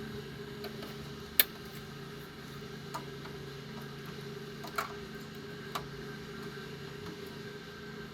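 A steady electrical hum with a few sharp clicks, the loudest about a second and a half in and three fainter ones spread over the next few seconds.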